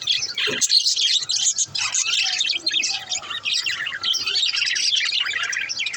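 A pair of budgerigars chirping and warbling continuously, a dense stream of rapid high chirps.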